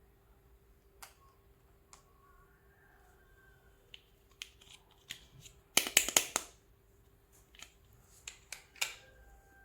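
Small plastic toy pieces being handled: scattered light clicks and taps, with a quick rattling run of clicks about six seconds in, the loudest moment.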